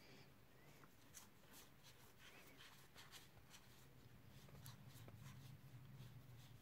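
Very faint clicks and light rustles of a fanned handful of Dinosaur King trading cards being leafed through by hand, a few soft flicks scattered through a near-silent room.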